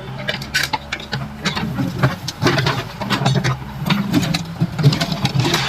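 Excavator's diesel engine running steadily under a quick, irregular clatter of knocks and cracks as the reinforced-concrete road slab is broken up.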